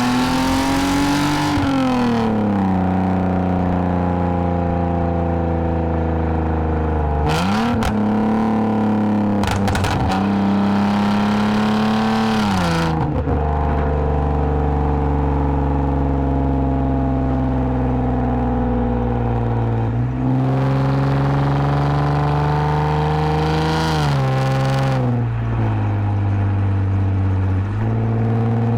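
2010 Lexus IS250 AWD's V6 with a full aftermarket exhaust and valved mufflers, under way. The engine note climbs, then drops with a gear change, and mostly holds steady at cruise, with a few short rises and falls in revs.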